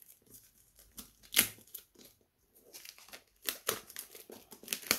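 Seal being torn off an intercom's product box, with crinkling and rustling of the packaging: one sharp rip about a second and a half in, then denser crackling from about halfway.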